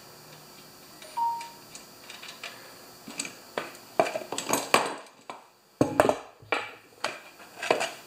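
A metal tin and hand tools clinking and knocking on a wooden workbench top as an oil catch container is set in place: a short ringing ping about a second in, then a string of clatters and knocks.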